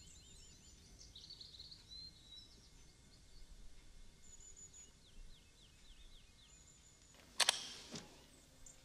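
Birds chirping, a run of short chirps and quick falling whistles over a faint background hiss. About seven and a half seconds in comes a sudden sharp clatter, the loudest sound, with a softer knock just after.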